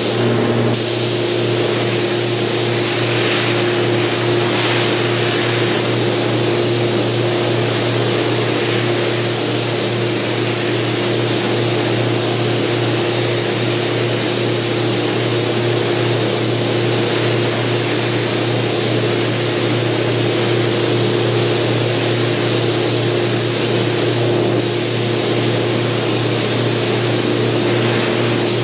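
Gravity-feed paint spray gun hissing steadily as paint is sprayed onto plastic rocker panel covers, over a steady low hum.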